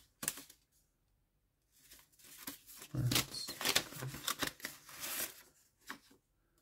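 Paper crinkling, rustling and tearing as new mandolin strings are taken out of their packaging, with a few light knocks, from about three seconds in until about five and a half seconds.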